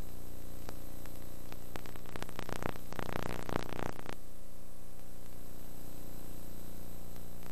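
Steady electrical hum and hiss, with a burst of crackling static from about two to four seconds in.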